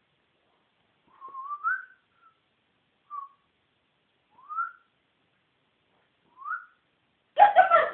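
Four short rising whistles, spaced a second or two apart, then near the end a sudden loud burst of dog yelping.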